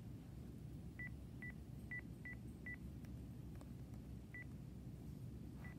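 Phone handset keypad beeping as a number is dialled: seven short high beeps, five in quick succession about a second in, then two more spaced out.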